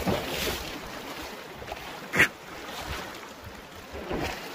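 Rushing of a shallow creek mixed with wind on the microphone, with one sharp bump about two seconds in.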